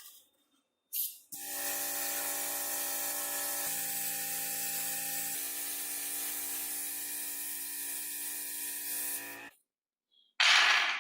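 Paint spraying: a steady spray hiss over a steady motor hum for about eight seconds, both stopping together, then a short loud spray burst near the end.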